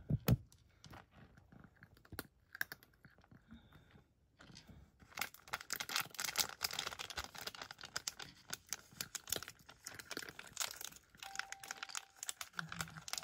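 Cat crunching dry kibble. The crunches are sparse at first, then come in a rapid, steady run from about five seconds in.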